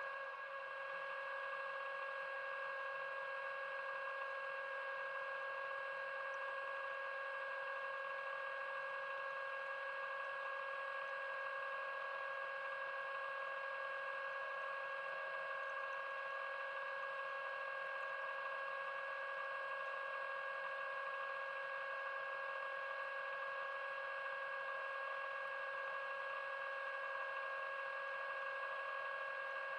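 Underwater scooter (diver propulsion vehicle) motor running at a steady speed underwater: an even, unchanging electric whine with a faint dip about half a second in.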